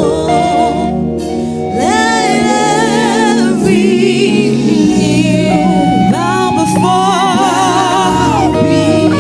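Gospel music: a sung vocal line with vibrato over sustained keyboard-style chords and bass.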